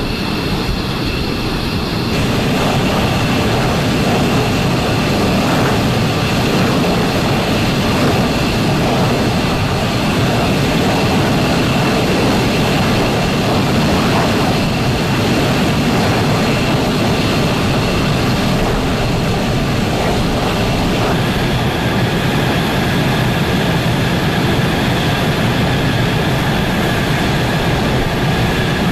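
Fighter jet's engine running loudly and steadily, with a high whine over the noise; the whine shifts about two seconds in and a new higher tone joins about three-quarters of the way through.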